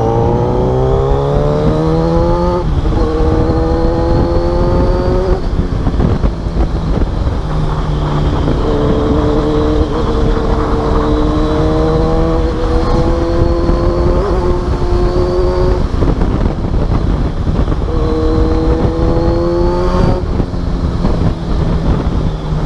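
Kawasaki Z1000's inline-four engine breathing through a newly fitted full exhaust system, heard while riding: it pulls up in rising sweeps through the gears, about five times, each cut off by a shift and starting again lower, with short lower stretches in between.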